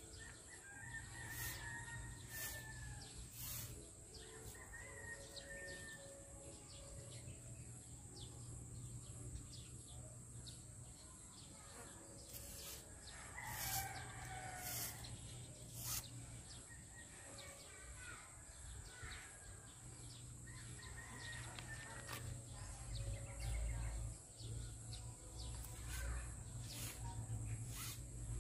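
Rooster crowing several times, the longest and loudest crow about halfway through, with scattered faint clicks and a low rumble building near the end.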